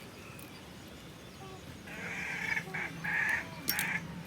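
Chickens giving several harsh squawking calls in a row, starting about halfway through.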